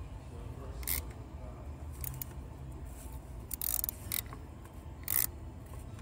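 Hand-turned 8x1.25 mm tap cutting new threads for the fuel injector hold-down bolt in a Ford 6.7L Power Stroke cylinder head, driven by a hand wrench: short scraping clicks at irregular intervals over a low steady hum.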